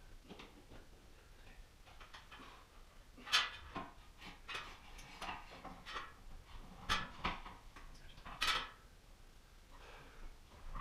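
Metal chandelier frame and hanging chain clinking and knocking as they are handled on a ladder, in scattered short sounds, the loudest about a third of the way in and twice more later.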